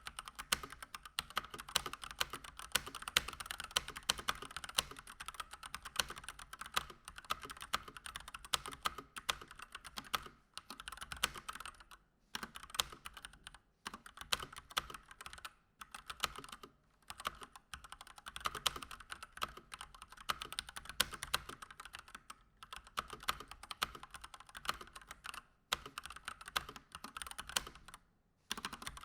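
Typing on a Keychron C1 mechanical keyboard with out-of-the-box Gateron Red linear switches: fast, continuous keystrokes in runs, broken by short pauses every few seconds.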